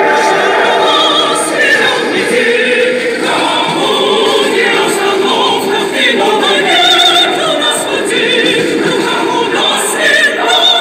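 Music with a choir singing, the voices holding long wavering notes.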